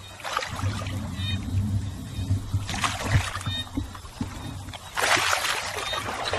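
Water splashing and sloshing in bursts as hands work through it catching fish, loudest about three seconds in and again over the last second or so, over a low rumble.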